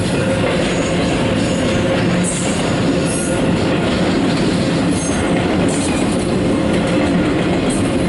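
Double-stack container well cars of an intermodal freight train rolling past close by, a loud, steady wheel-on-rail noise.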